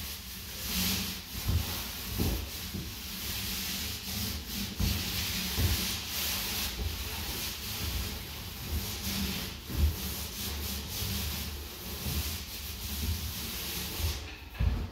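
Paint roller on an extension pole rolling paint onto a wall in repeated up-and-down strokes: a rubbing swish that swells and fades with each stroke.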